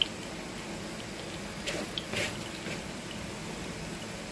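Breaded chicken nuggets sizzling gently in hot shallow oil in a frying pan, with a steady low crackle and a few sharper pops about two seconds in.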